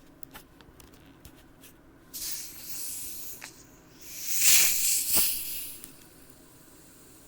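A bottle of seltzer being opened: a few light handling clicks, then carbonation hissing out in two rushes as the cap is twisted, the second louder, with a sharp click during it.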